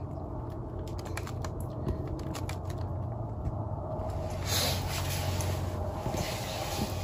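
Scattered light clicks and handling noise from the underwater fishing camera's monitor case as its buttons are pressed, over a steady low hum, with a brief rush of noise about halfway through.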